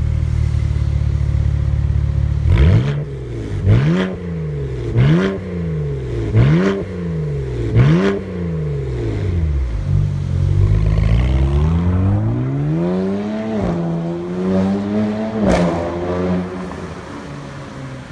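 BMW Z4's turbocharged 3.0-litre straight-six running through an RES stainless-steel valved cat-back exhaust, revved while standing still. It idles, then takes five quick blips of the throttle, each rising and falling, then one long rev that climbs slowly over several seconds. A sharp crack comes as the revs drop back toward idle.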